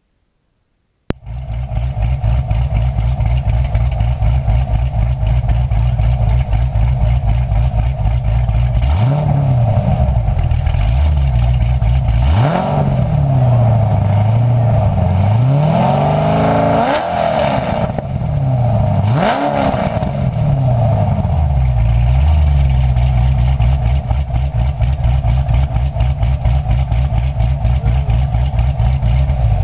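2007 Chevrolet Corvette V8 heard at the rear by the exhaust, idling with a pulsing beat and revved several times. There are sharp blips about 9, 12, 17 and 19 seconds in, each rising and falling back to idle. The sound comes in suddenly about a second in and settles back to a steady idle for the last ten seconds.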